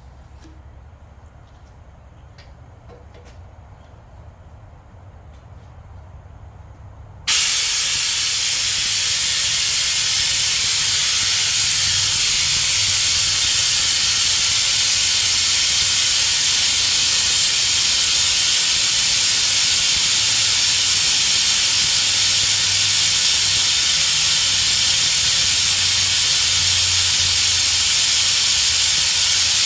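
A low hum with a few faint ticks, then a loud steady hiss that switches on suddenly about seven seconds in and holds at an even level.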